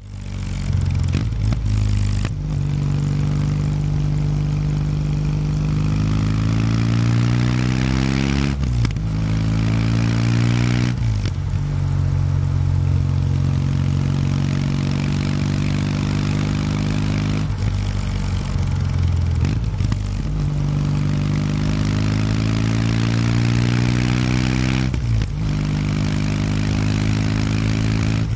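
Kawasaki W800 Street's air-cooled parallel-twin engine on its stock exhaust, heard from the rider's seat while the bike is under way. The engine note climbs in pitch as it pulls, then drops back, about six times over.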